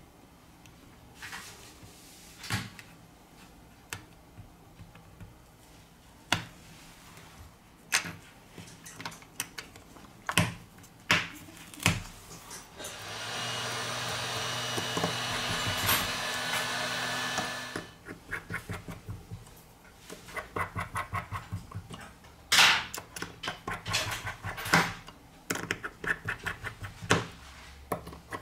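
Small clicks and taps of tools and parts as a smartphone is reassembled and screws are driven into its loudspeaker bracket with a precision screwdriver. A steady whirr runs for about five seconds in the middle, and fast runs of ticks come near the end.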